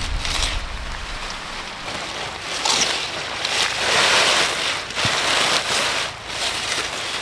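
Bunches of freshly cut leafy greens rustling as they are dropped and laid into a woven bamboo basket, in several bursts of rustling, the loudest about four seconds in.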